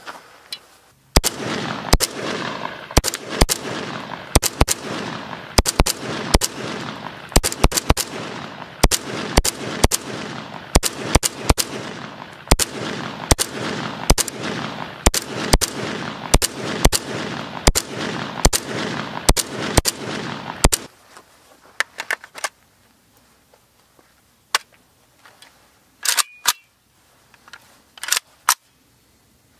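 AKS-74U short-barrelled carbine firing shot after shot at an uneven pace, one to two shots a second, each shot ringing out briefly. It stops about two-thirds of the way through, leaving only a few sharp clicks near the end.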